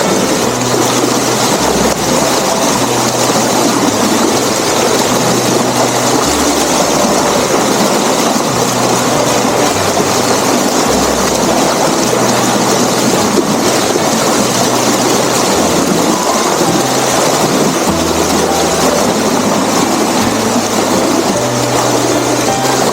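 Loud, steady rush of water flowing over a dam, with low held tones underneath that change pitch every second or so.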